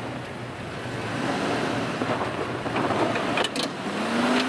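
Engine of a short-wheelbase 4WD running under load as it crawls up out of a deep washout, with wind buffeting the microphone. A few sharp knocks come a little past three seconds in, and the engine note rises near the end.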